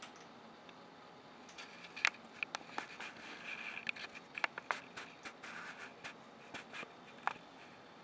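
Crinkly rustling and crackling of plastic bags, with a string of sharp clicks and scrapes, as a juvenile herring gull pushes in among them. It starts about a second and a half in and stops with one last click near the end.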